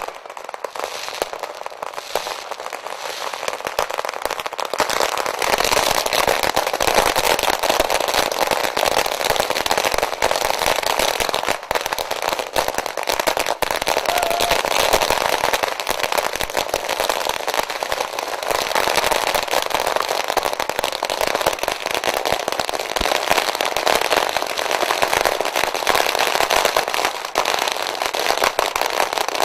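Firecrackers going off at ground level in a rapid, continuous crackle of many small bangs, growing fuller and louder about five seconds in.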